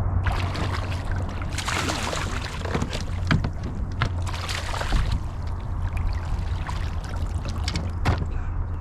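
Water splashing and sloshing against a fishing kayak, with a few sharp knocks, over a steady low rumble. The splashing is heaviest about two seconds in and again around four and a half seconds.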